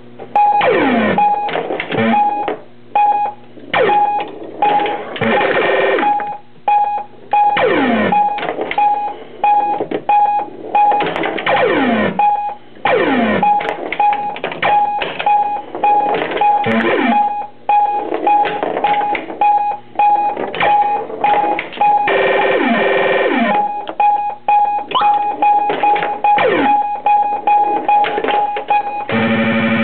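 1979 Williams Stellar Wars pinball machine's electronic sound board playing its game sounds: a beep pulsing about twice a second, repeated falling pitch sweeps, and clicks of play, over a steady low hum. Some effects are sort of clipped, and the hum is put down to grounding still to be done. A short musical tune starts just before the end.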